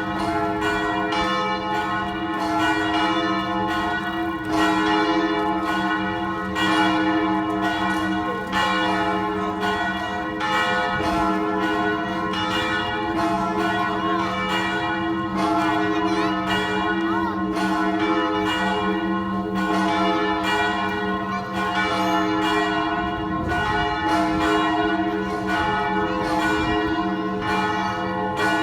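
Western-style church bells ringing a continuous peal: several bells struck over and over, their tones overlapping and ringing on between strikes.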